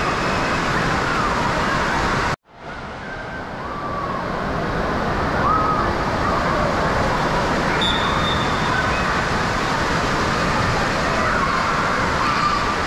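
Indoor water park din: a steady wash of splashing water and crowd noise in a large hall, with children's shrieks and calls rising and falling over it. The sound cuts out abruptly about two and a half seconds in, then fades back up.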